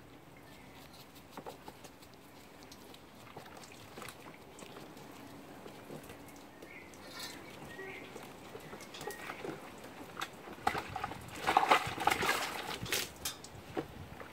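Capuchin monkey splashing about in a plastic tub of soapy water: small, scattered splashes and drips at first, then a burst of loud splashing in the last few seconds.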